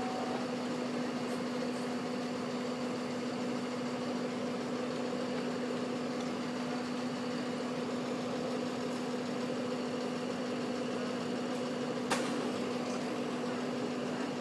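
Fire engine's diesel engine running steadily to power its extended aerial ladder, a constant low hum that does not change in pitch. A single sharp click about twelve seconds in.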